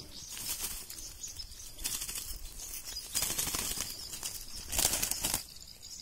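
A bird flapping its wings among bushes and twigs in three short rustling bursts, struggling where it is held or caught.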